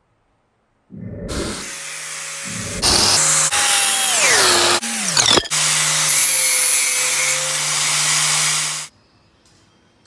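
Corded electric power tool mounted in a bench jig, running with a steady whine while cutting bamboo stalks into straw lengths. Its pitch drops steeply once about four seconds in, and the sound cuts off abruptly near the end.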